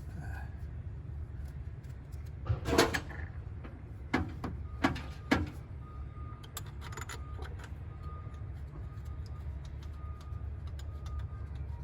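A few sharp clanks and knocks of tools and metal parts being handled, the loudest about three seconds in, over a steady low rumble.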